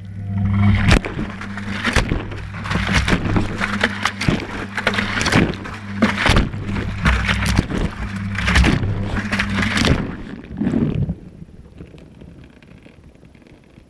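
Whirlpool Indiana 1400 washing machine drum turning, heard from inside: the motor's steady hum under irregular knocking and clatter as the camera housing tumbles with the laundry against the drum. It starts suddenly and stops about ten seconds in, leaving only a faint sound.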